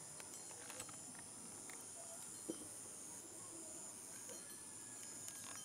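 Faint, steady, high-pitched chorus of insects trilling without pause, with a single light tap about two and a half seconds in.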